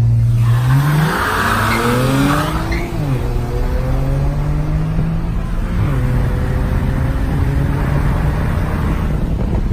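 Tuned BMW 335i's turbocharged inline-six at full throttle, heard from inside the cabin: the revs climb, drop sharply at an upshift about three seconds in, climb again, drop at a second upshift about six seconds in, then pull on in the next gear. A loud rushing hiss sits over the engine in the first couple of seconds.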